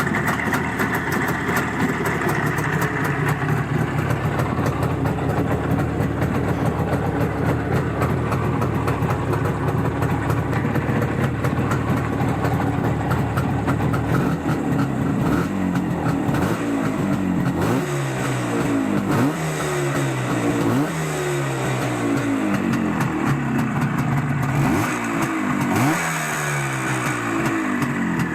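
Izh Jupiter two-stroke twin-cylinder motorcycle engine running steadily. From about halfway its throttle is blipped again and again, the revs rising and falling about once a second.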